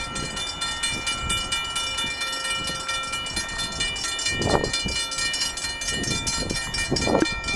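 Railroad crossing bell ringing in a steady, rapid repeating pattern at a lowered-gate grade crossing, over the low rumble of an approaching ALP-45DP locomotive and train.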